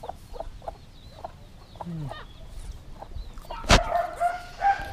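Layer hen clucking in short, repeated clucks. A single sharp knock sounds nearly four seconds in, followed by a longer drawn-out call near the end.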